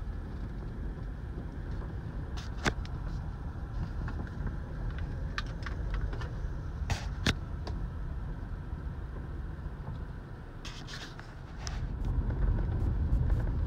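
Car driving slowly on a dirt road, heard from inside the cabin: a steady low rumble of engine and tyres, with a few sharp clicks and knocks, two of them close together about halfway through. The rumble grows louder near the end.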